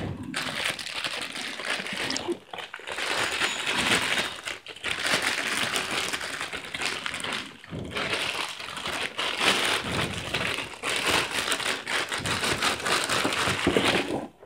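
Plastic packaging crinkling and rustling in irregular stretches as a liquid CPU cooler is pulled out of its box and unwrapped from its plastic bag.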